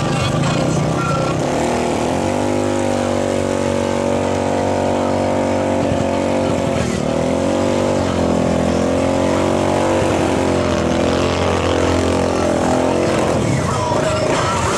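Four-wheeler ATV engine revving in deep mud, its pitch dipping and rising again several times, over a steady lower engine hum. The revving stops about a second before the end.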